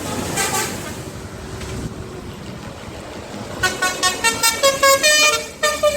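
A bus passes with engine and road noise, then about three and a half seconds in its multi-tone 'telolet' horn plays a quick melody of stepping notes, several a second, which is the loudest sound.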